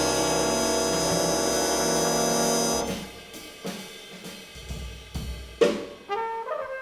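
Jazz big band holding a loud sustained brass chord over cymbals, cutting off about three seconds in. Scattered drum and cymbal hits and a few short notes follow.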